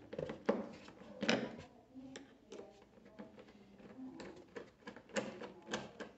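Phillips screwdriver working screws out of a motorcycle's plastic dash and windshield panel: irregular small clicks and scrapes of the bit on screw heads and plastic trim, with a few sharper knocks.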